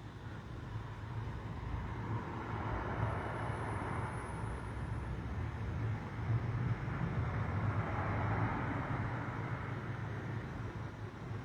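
Road traffic: a vehicle passing, a steady rushing sound that builds over the first couple of seconds and eases slightly near the end.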